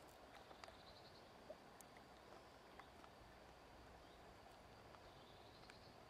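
Near silence: faint outdoor ambience with a few soft clicks and faint high chirps.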